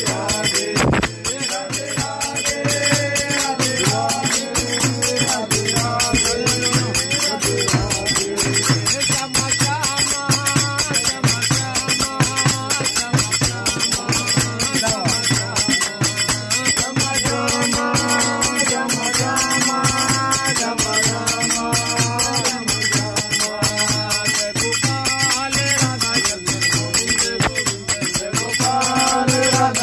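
Haryanvi devotional bhajan sung by a voice over a steady, fast rhythm on a jingling frame drum and small brass hand cymbals (manjira), the melody becoming fuller about halfway through and again near the end.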